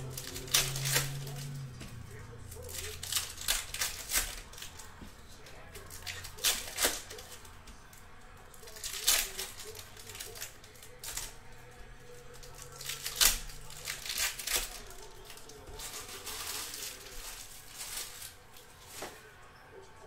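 Plastic-foil trading card packs being torn open and the cards inside handled, with crinkling and sharp crackling snaps at irregular intervals.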